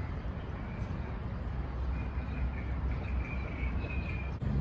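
City street ambience: a steady low rumble of traffic, with faint high chirping in the second half.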